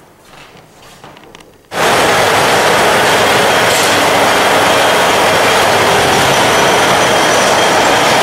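A self-acting woollen spinning mule, built in Germany in 1937, running: a loud, steady mechanical clatter that starts suddenly about two seconds in.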